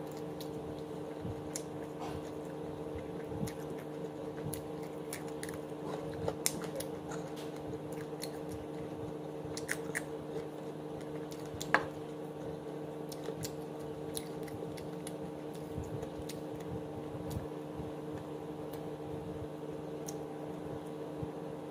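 Close-up sounds of a person eating chicken with her hands, biting and chewing, heard as many small scattered clicks over a steady low hum. One sharper click about twelve seconds in is the loudest.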